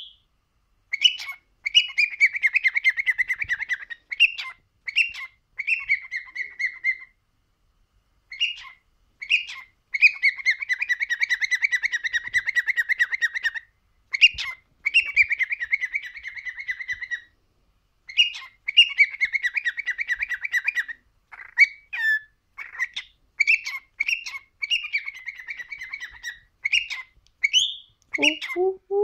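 Male cockatiel singing: short chirps and long warbling phrases with a fast trill, separated by brief pauses.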